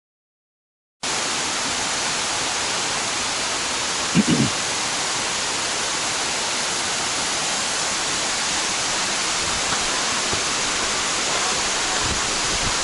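Large waterfall crashing down in front of a rock cave: a steady, loud roar of falling water. It starts suddenly after about a second of silence, and a brief low sound cuts through about four seconds in.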